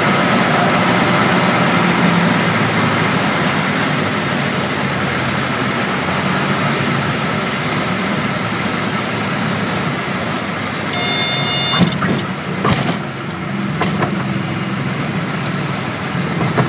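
Piper Tomahawk's Lycoming O-235 engine and propeller heard from inside the cabin at landing power, easing slightly as the plane lands. About eleven seconds in, a buzzing tone sounds for about a second, typical of the stall warning horn in the flare. A few thumps follow over the next couple of seconds as the wheels touch down.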